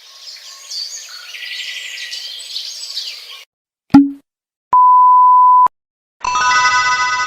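A run of separate stock sound effects. First, birds chirping for about three and a half seconds. Then a short low 'bloop', a one-second steady censor-style beep, and a ringing sound of several tones held together that starts near the end.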